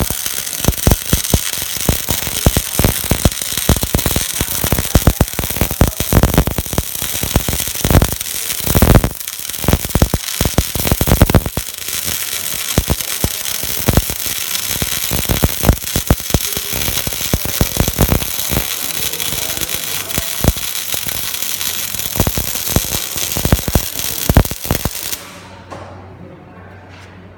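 Electric arc welding: a loud, steady sputtering crackle of the arc with many sharp pops, which stops abruptly about 25 seconds in, leaving a faint low hum.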